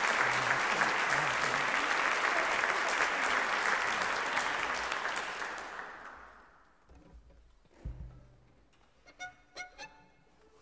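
Audience applause that fades out after about five seconds, followed by a few short, quiet instrument notes and a low thump as the band gets ready for the next tune.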